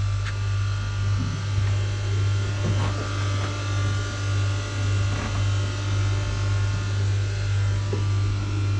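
Steady machinery drone in a motor yacht's engine room: a strong low hum with many steady higher tones, swelling and fading about once a second. A few faint knocks sound over it.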